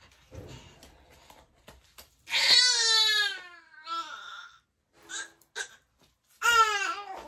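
Baby crying: a long, high wail that falls in pitch about two seconds in, a short whimper after it, and another cry near the end.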